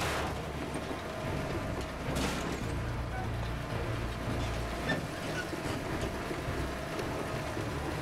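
Dramatic background music with deep, stepping bass notes and sharp hits at the start and about two seconds in, over a steady low rumble of heavy tow trucks pulling on their winch lines.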